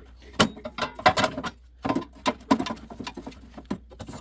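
Irregular clicks, taps and knocks of a snowblower's engine shroud being handled and worked loose, caught on a lip.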